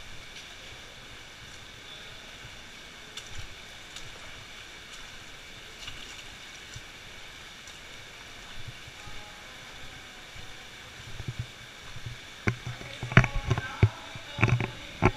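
Steady rush of a shallow cave stream, then, from about twelve seconds in, a run of loud splashes and knocks as feet wade and step on rocks in the water.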